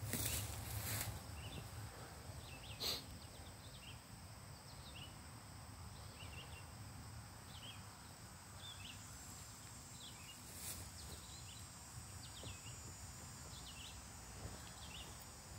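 Quiet woodland ambience: a small bird giving short chirps over and over, with a steady low rumble underneath and two sharp clicks.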